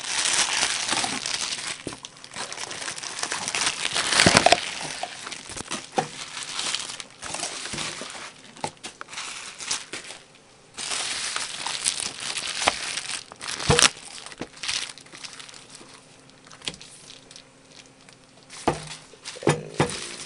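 Crinkly plastic wrapping being crumpled and handled in irregular bursts, loudest about four seconds in, with scattered sharp clicks and a few knocks.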